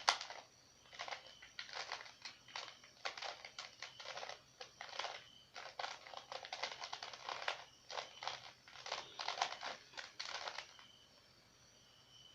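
Plastic Rubik's cube being turned by hand, its layers clicking and rattling in quick runs of turns, stopping near the end.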